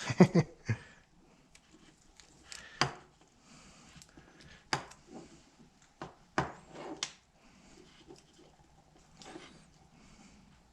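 Electrical tape being torn and wrapped around a wire splice by hand: scattered clicks and taps, with a few short rasps of tape coming off the roll.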